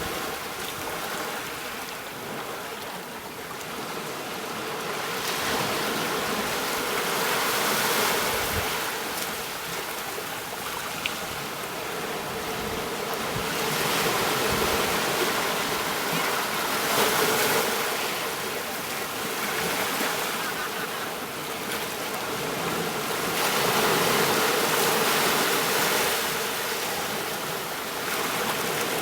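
Rushing water, swelling and easing every few seconds.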